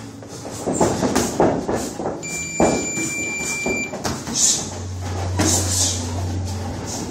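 Boxing gloves landing in sparring, irregular dull hits and scuffs. About two seconds in, a single steady electronic beep sounds for just under two seconds.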